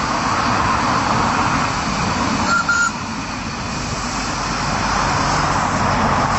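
Small LBSC Doris live-steam locomotive running, a steady rushing hiss of steam and working noise. A brief high double pip comes about two and a half seconds in.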